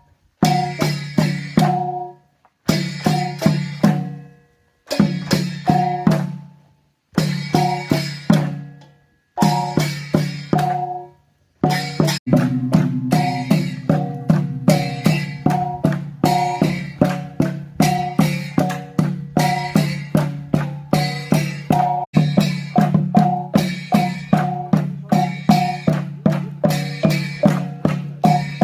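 Traditional percussion of the Mizo bamboo dance (Cheraw) playing a repeating rhythm of sharp, ringing, pitched strikes. For the first twelve seconds or so it comes in short phrases broken by brief pauses, then it plays on without a break.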